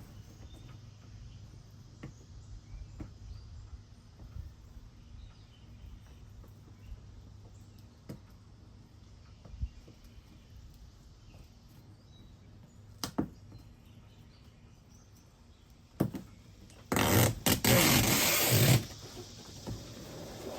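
Quiet background with a few light clicks and knocks, then a loud rasping noise for about two seconds near the end.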